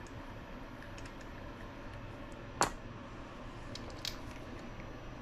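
A few light clicks and taps from small RC shock parts and a pick tool being handled on a bench mat, the loudest about two and a half seconds in, over a steady low hum.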